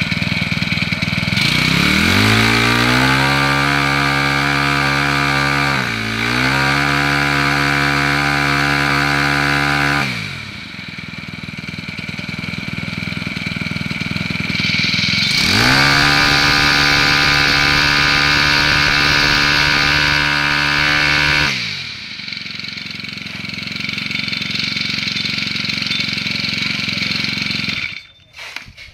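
Honda GX25 25cc four-stroke brush-cutter engine idling, then revved up twice to high speed and held there for several seconds each time before dropping back to idle; it has the softer, deeper note of a four-stroke. It cuts off near the end.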